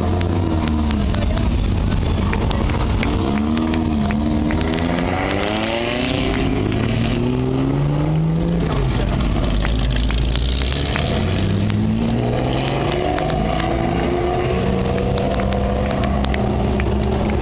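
Classic racing cars driving one after another down through a hairpin, their engines' pitch rising and falling as each one passes, over a steady low engine drone from the queue of cars. Scattered sharp ticks run through it.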